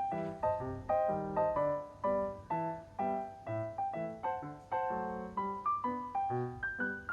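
Background piano music: a light melody of separate notes played at a steady pace, a few notes a second.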